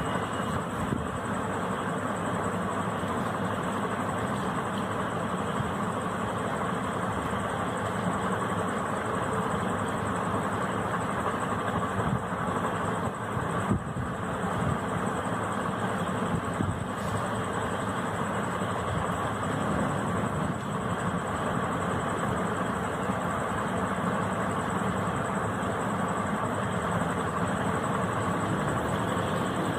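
Steady low rumbling background noise with a faint high-pitched whine above it.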